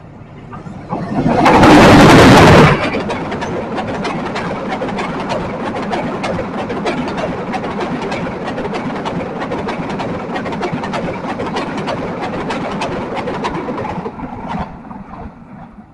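A train passing through a level crossing: a very loud rush of noise for about a second and a half as it arrives, then a steady rumble full of rapid wheel clacks on the rails for about twelve seconds, dying away near the end.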